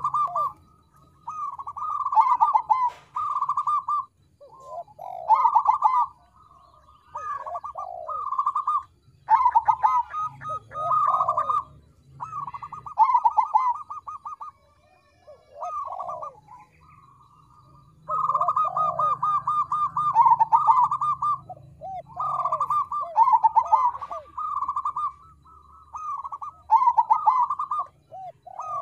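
Crossbred perkutut (zebra dove) singing: rapid, bubbling trilled coos repeated phrase after phrase in bouts, with a longer pause about halfway through.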